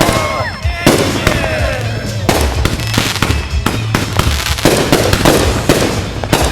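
Consumer fireworks going off in quick succession: a dense run of sharp bangs and crackles, with whistling glides that rise and fall near the start.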